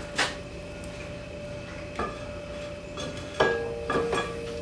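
Steel bar knocking against metal, about four clanks, each leaving a ringing tone. The hot drill-rod bar is being handled in an oil quench.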